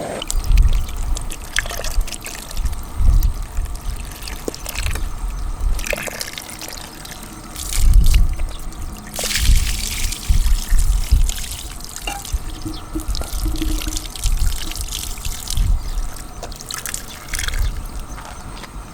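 Water trickling and splashing, with repeated low thumps and scattered light clicks.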